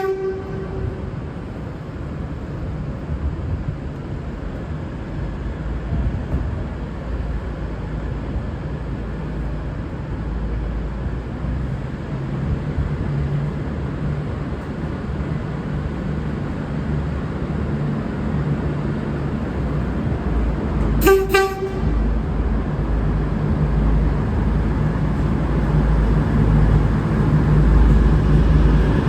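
V/Line VLocity diesel railcar set departing, giving short blasts on its low-note horn: one at the very start and another short toot about 21 seconds in. Between them is the steady low rumble of its diesel engines, growing louder toward the end.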